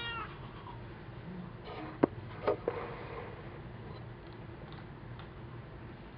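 A house cat's meow tails off at the very start. About two seconds in come three short clicks or taps in quick succession, the first the sharpest, over a steady low hum.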